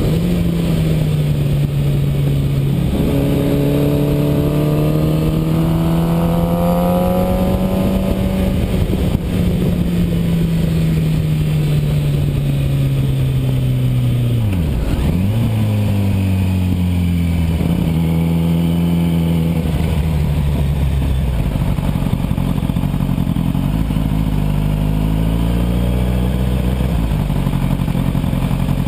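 Motorcycle engine heard from on board with wind rush, running steadily at moderate revs. About halfway the pitch drops sharply and recovers as the bike slows, then the engine runs at a lower, steady speed for the rest.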